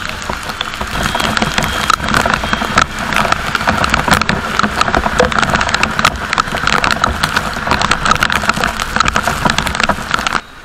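Very heavy rain pelting a moving scooter and its camera: a dense crackle of countless drop impacts over road and traffic rumble. The level drops sharply just before the end.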